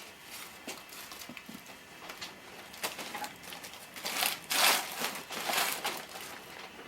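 Rustling and crinkling handling noise, with scattered light clicks and knocks and a louder stretch of rustling from about four to six seconds in.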